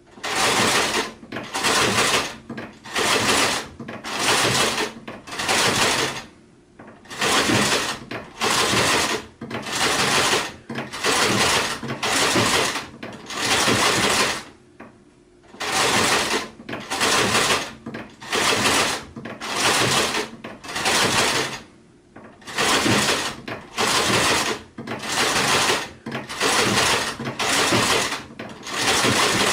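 Sewing machine stitching in short runs of about half a second each, roughly one a second, stopping for about a second every seven or eight seconds.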